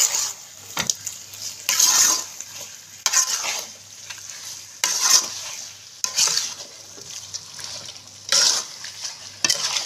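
Spatula scraping and stirring chicken pieces in masala around a metal kadai, in uneven strokes about once a second. A faint steady sizzle of frying runs underneath: the chicken is being sautéed in the spice paste.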